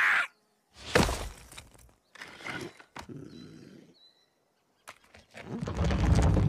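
Sound effects from a CGI animation. A heavy thud comes about a second in, followed by softer scuffs, two sharp clicks and a couple of faint high chirps. A low rumble builds near the end.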